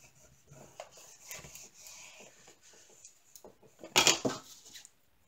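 White plastic scraper rubbing and scraping over a plastic sheet, with small ticks and scratches. About four seconds in comes a loud, brief plastic clatter as the scraper is set down on the sheet.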